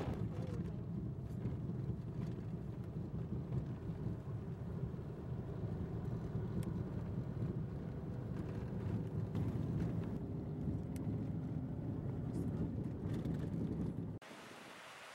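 Steady low rumble of a vehicle's engine and tyres on the road, heard from inside the cab while driving; it cuts off about a second before the end.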